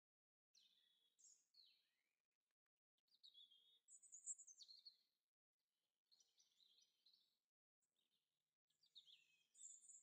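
Faint garden birdsong: four short phrases of high chirps and falling notes, with silent gaps between them.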